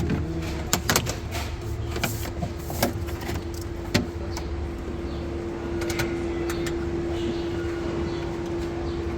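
A steady mechanical hum with a low rumble, growing a little louder about halfway through, under a handful of short clicks and knocks of parts being handled in the first few seconds.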